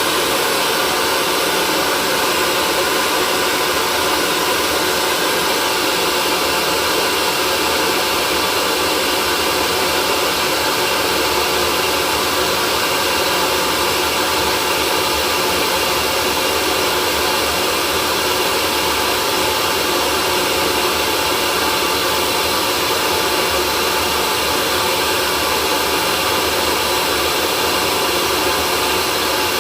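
Hair dryer running steadily without a break: an even rushing noise with faint steady tones in it.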